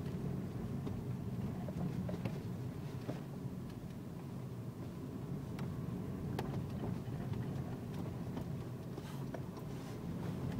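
Car engine and tyres rumbling steadily inside the cabin while driving slowly down a rough farm track, with a few faint scattered clicks and knocks.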